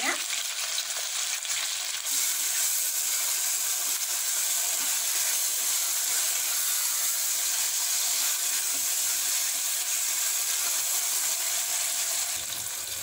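Onions, green chillies and tomatoes sizzling in hot oil in a pressure cooker as they fry down, stirred with a spatula. The sizzle is a steady hiss that grows a little louder about two seconds in.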